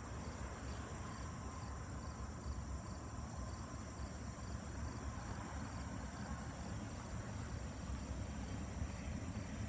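Insects trilling steadily in the trackside weeds, with a faint regular pulse, over a low rumble from a freight train still far off that grows slightly louder toward the end.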